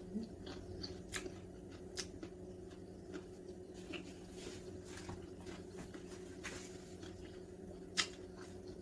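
Faint, scattered small clicks and rustles of kitchen handling or eating, over a steady low hum. There are sharper clicks at about one, two and eight seconds in.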